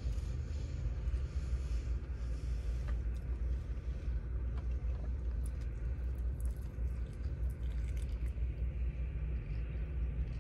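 Steady low rumble inside a car, with soft clicks and smacks of biting and chewing a glazed chicken wing.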